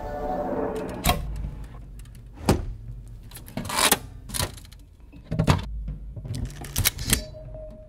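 A ringing chime-like tone fades out, then comes a string of sharp clicks and knocks at uneven intervals, about eight in all. A steady tone enters near the end.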